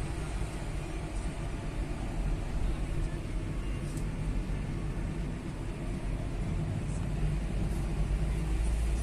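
Car driving along a wet road, heard from inside the cabin: a steady low rumble of engine and tyre noise.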